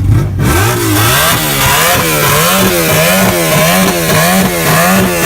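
An engine revved over and over, its pitch climbing in the first second and then rising and falling about twice a second in quick rhythmic blips.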